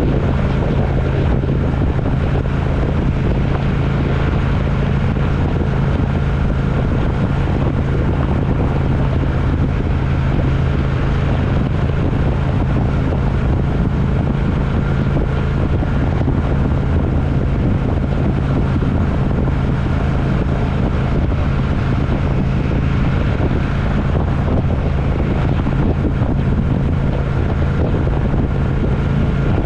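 A vehicle running at steady speed: a constant engine hum over steady road and wind noise, with no change in pitch or level.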